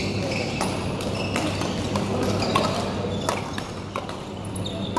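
Badminton rally: rackets cracking against the shuttlecock several times, mixed with short squeaks of court shoes on the hall floor, over a steady low hum of a large hall.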